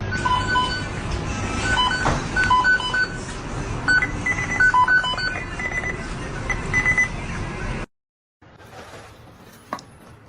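A string of short electronic beeps at a few different pitches over a steady noisy background. The sound cuts off abruptly near the end, and a quieter sound with a single sharp click follows.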